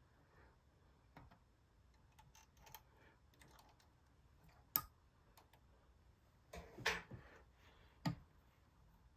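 Faint, scattered clicks and small metal taps from hands working at the feed wheels and needle of a Bonis fur sewing machine, clearing thread that has bunched up; the machine is not running. Three sharper clicks come in the second half.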